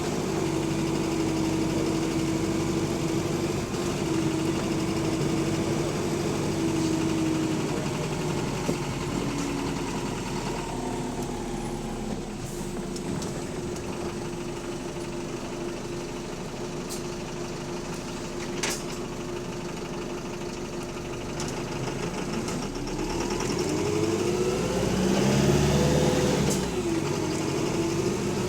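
Double-deck bus diesel engine running steadily, then revving up and down near the end, with the loud knocking that the uploader takes for a worn connecting-rod bearing. A single sharp click about two-thirds of the way through.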